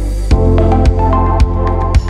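Electronic background music with a steady beat, about two beats a second. The beat comes in shortly after a rising swell near the start.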